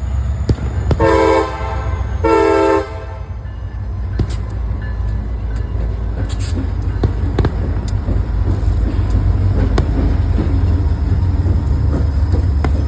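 Diesel freight locomotive's air horn sounding two short blasts, then the steady low rumble of the grain train's locomotives and cars rolling past, with scattered sharp clicks and pops.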